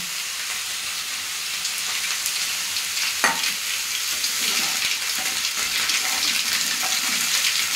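Panch phutana (five-spice mix) sizzling and spluttering in hot mustard oil in an aluminium kadai: a steady hiss with small crackling pops. A single sharp click comes about three seconds in.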